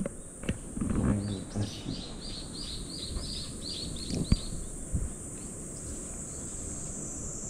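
Steady high buzzing of summer insects, likely cicadas, with a bird giving a quick run of chirps, about four a second, for roughly three seconds starting about a second in. A few soft knocks and rubs come as the cat brushes against the camera.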